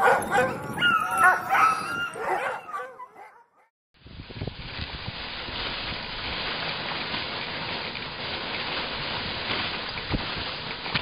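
Sled dogs barking, yelping and whining for about the first three seconds. After a brief gap, a steady rushing noise begins, with a thump near the end.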